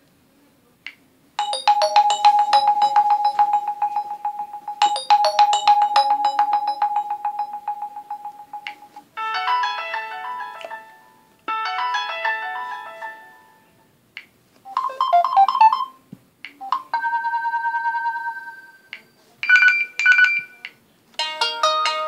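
LG K10 LTE stock ringtones played one after another: short electronic melodies, about six different tones in these seconds, several played twice over, with brief pauses between them.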